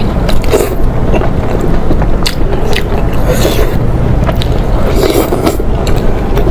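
Close-miked eating sounds: a person biting and chewing braised pork tail, with scattered sharp smacks and clicks over a steady low rumble.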